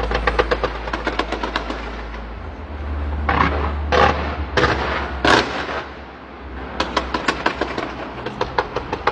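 Fireworks going off in rapid strings of sharp pops, with a few louder, longer bangs midway, then quick popping again, over a steady low drone.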